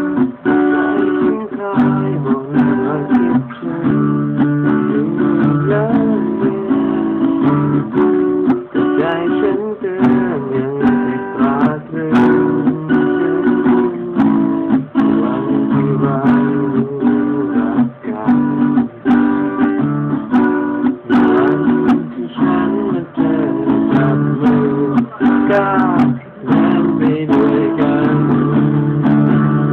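Acoustic guitar strummed in a steady rhythm, changing chords every second or two.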